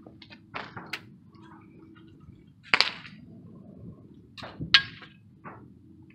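Air rifle shots: two sharp cracks about two seconds apart, with fainter clicks and pops between and around them.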